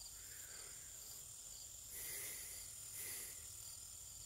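Faint steady high-pitched insect drone, with two soft rustling sounds about two and three seconds in.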